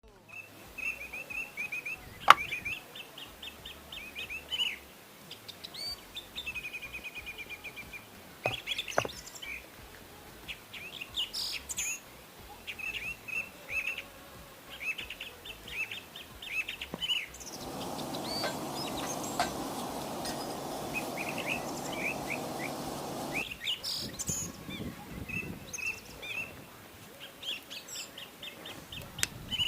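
Small birds chirping and twittering in quick repeated phrases, with a few sharp knocks. A steady, lower noise lasts about six seconds a little past the middle.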